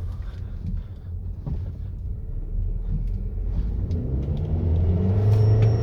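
Volkswagen Tiguan accelerating on turbo boost: the engine's low drone climbs in pitch and grows louder. A steady high whistle joins near the end, the whistle the car makes when it is on boost.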